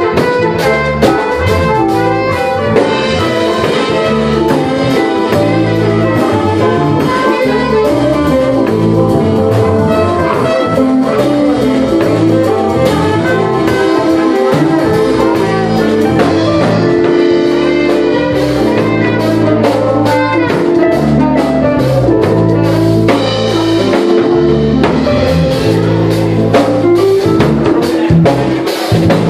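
Jazz fusion band playing live, with a steady ensemble groove carrying through the whole passage.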